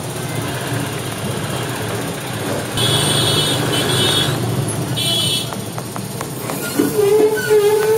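Busy city road traffic: a steady vehicle engine and road rumble. Short high-pitched horn beeps come about three and five seconds in, and a longer, lower horn tone starts near the end.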